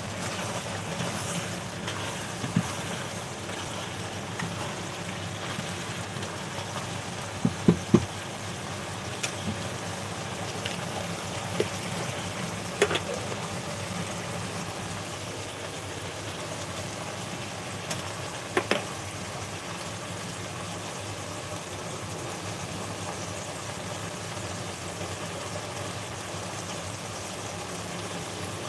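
Pot of stew boiling steadily in its broth. There are a few short knocks, a cluster about eight seconds in and single ones later.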